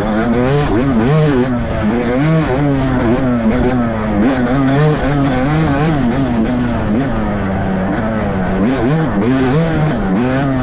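Yamaha YZ250 two-stroke single-cylinder dirt bike engine under way, its pitch rising and falling again and again as the rider works the throttle through the gears. Heard from the rider's helmet camera, with wind and tyre noise underneath.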